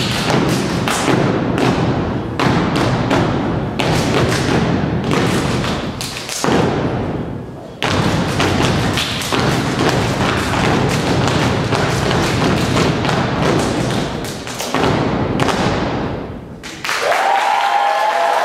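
A step team stomping on a wooden stage and clapping in a rapid, tight rhythm, with a few brief breaks. About a second and a half before the end the stepping stops and the audience breaks into applause and cheers.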